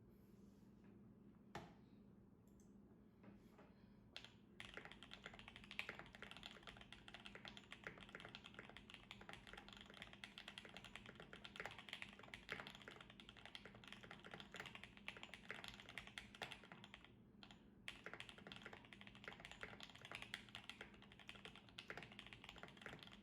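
Typing on a Potato65 acrylic stacked, gasket-mounted mechanical keyboard with lubed and filmed JWK white switches on an aluminium plate. A few scattered keystrokes, then steady rapid typing from about four seconds in, with a short pause about three-quarters through.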